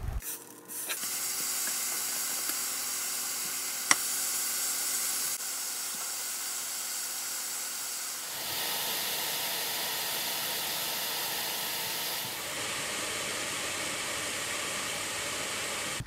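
Sliced beef sizzling in a frying pan: a steady frying hiss, with one sharp click about four seconds in.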